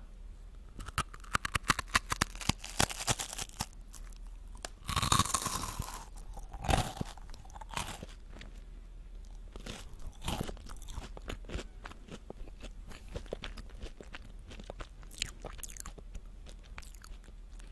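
Close-miked crunching and chewing of a crisp chocolate-cream-filled wafer. Rapid crunches come in the first few seconds, with a louder crunch about five seconds in, then sparser crackling chews.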